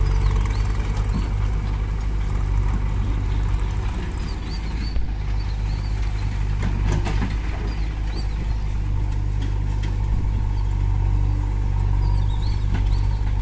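Mahindra 585 DI tractor's four-cylinder diesel engine running steadily, with no revving.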